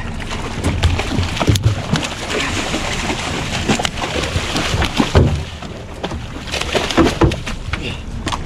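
A hooked snoek thrashing and splashing at the surface beside a boat's hull, with irregular splashes and knocks throughout.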